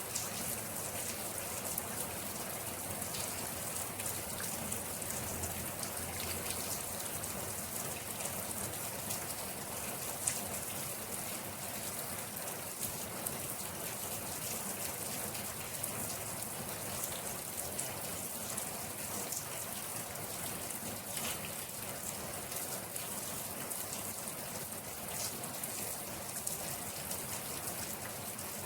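Steady rain falling on a surface, a continuous hiss with scattered individual drops ticking sharply through it.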